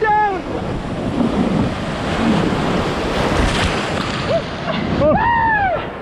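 River water rushing and splashing loud around an inflatable raft, with wind buffeting the microphone. A person's yell rises and falls about five seconds in.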